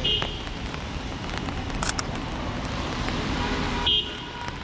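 Steady rain and city street traffic noise heard from under an umbrella, with two short high-pitched beeps, one at the start and one about four seconds in.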